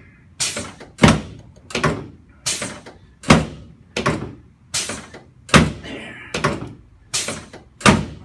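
A rapid series of sharp knocks, about one to two a second, from a chiropractor's quick thrusts adjusting the pelvis and lower back of a patient lying face down on an adjusting table.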